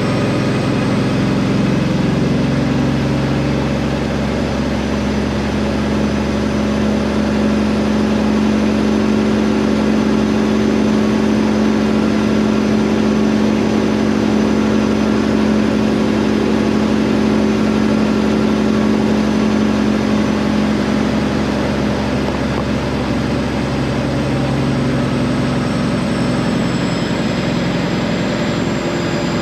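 Peterbilt semi truck's diesel engine running steadily under way, a constant low drone with a slight change in engine speed about two-thirds of the way in.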